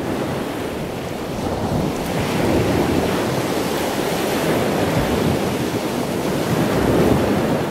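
Steady rushing noise of waves, swelling and easing gently, with no tone or rhythm in it.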